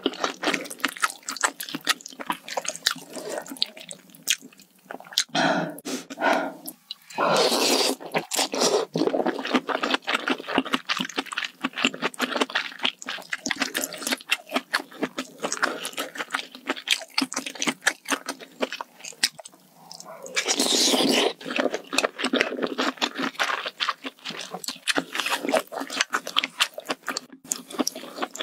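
Close-miked eating of malatang spicy hot pot: wet chewing with rapid mouth clicks, and two loud slurps lasting a second or so, one about seven seconds in and one about twenty seconds in.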